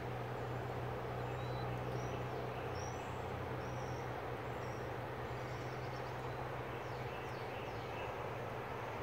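Steady rush of highway traffic and a swollen river, with a low engine hum that fades out about seven seconds in. A small bird chirps short high notes again and again through the middle.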